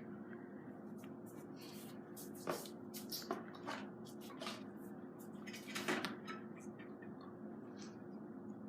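Scattered light clicks and knocks of plastic toys and Play-Doh containers being handled, over a steady faint hum.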